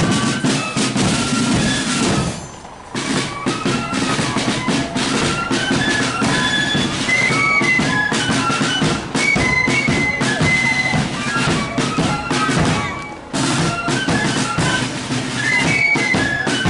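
Marching flute band playing a tune: flutes carry a high melody over rattling side drums and a bass drum, with two brief breaks in the playing, about two and a half seconds in and near the end.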